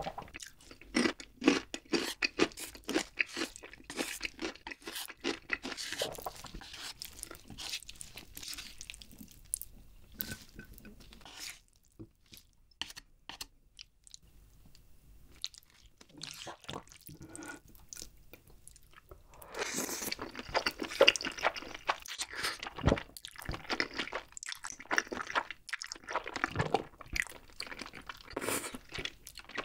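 Close-miked eating sounds: crunchy chewing over the first several seconds, quieter chewing in the middle, then louder slurping and chewing of a mouthful of creamy spicy instant noodles from about two-thirds of the way in.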